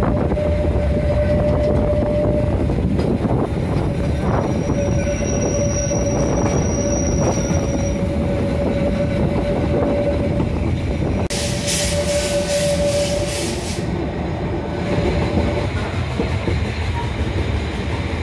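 Narrow-gauge steam train running, heard from an open carriage platform: a steady rumble of wheels on the track, with a thin squeal from the wheels coming and going. A loud hiss joins it for about two seconds a little past the middle.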